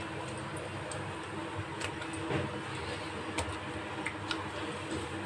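Hands rubbing turmeric, salt and chilli into raw fish in a steel plate: soft wet handling with about half a dozen scattered light clicks and taps over a steady low hum.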